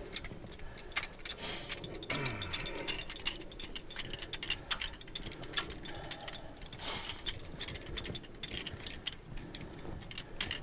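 Irregular light metallic clicks and a few scrapes from a slide-hammer seal puller being screwed out and worked inside the rear axle housing, spreading its two fingers to catch the old axle seal.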